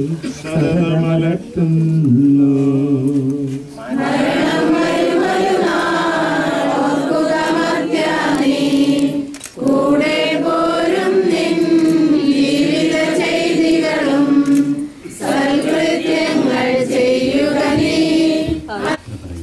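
Group of voices singing a slow hymn in long held phrases. A lower voice carries the first few seconds before fuller, higher group singing takes over.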